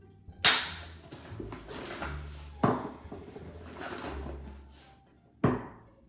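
Three sharp knocks a couple of seconds apart as objects, including hair clippers, are set down on a hard bathroom countertop.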